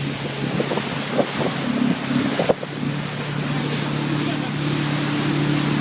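Motorboat engine running with a steady hum, under wind noise on the microphone and rushing water. About two and a half seconds in there is a brief dip, after which the engine runs steadily and a little louder.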